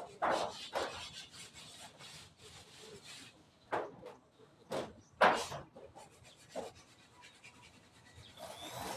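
Wood being scraped or rasped in irregular strokes, with a few sharper, louder strokes around the middle.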